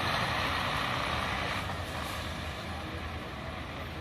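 Intercity coach bus engine running as the bus drives past, its sound fading steadily as it moves away.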